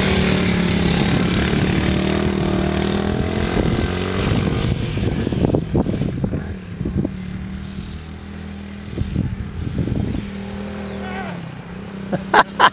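Dirt bike engine revving as it runs past on a dirt flat track, its note rising and falling with the throttle, then fading as it runs away around the oval and growing again as it comes back. A few sharp pops near the end.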